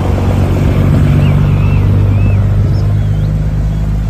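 Heavy semi-truck diesel engines running as a convoy of tractor-trailers drives past, a loud, steady low rumble.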